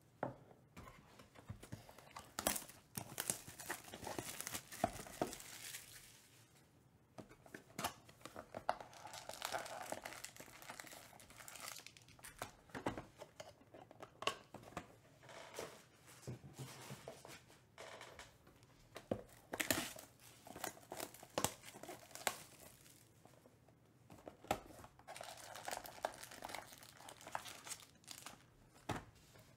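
Plastic wrapper being torn and crinkled off a sealed trading card box, then foil card packs rustling as they are lifted out of the opened box by hand, in irregular bursts.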